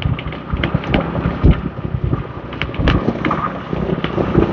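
Wind buffeting the microphone of a moving motorbike in irregular low gusts and thumps, over the steady running of the motorbike's engine and street traffic.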